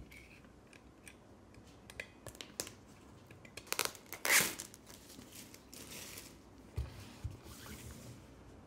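Plastic shrink wrap being slit with a cutter and torn off a box, a run of small clicks followed by crackling and crinkling, loudest about four seconds in. A few light knocks near the end as the box is set down on the table.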